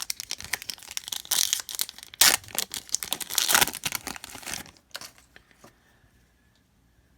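Foil trading card pack wrapper crinkling and tearing as a pack is ripped open, a dense crackle lasting about five seconds, loudest midway, then dying away.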